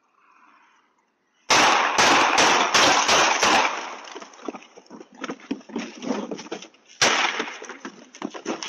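Gunfire picked up by a home security camera's microphone. A rapid volley of about six loud shots starts about a second and a half in, trails off into scattered smaller cracks, and one more loud shot comes about seven seconds in.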